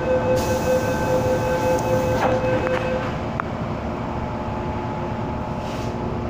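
MTR M-Train electric multiple unit running, heard from inside the passenger car: a steady rumble of wheels and running gear, with a steady whine from the traction motors that cuts off about three seconds in.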